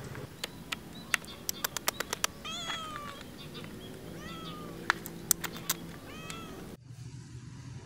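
Tortie cat giving several short, rising-and-falling meows, begging for food. Sharp clicks come in between, some in a quick run and the loudest a few apart.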